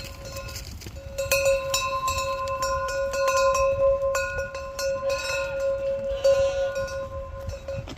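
Bells on a flock of sheep ringing and clanking continuously as the flock moves, with a couple of short sheep bleats about five and six seconds in.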